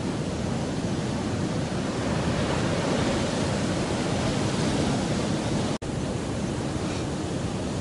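Steady wash of surf on the beach, an even rushing noise with no distinct waves standing out. It cuts out for an instant about six seconds in.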